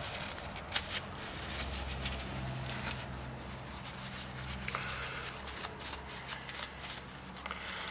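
Light metallic clicks and rubbing as the small vanes of a turbocharger's variable-geometry ring are worked and set back in position, over a steady low hum.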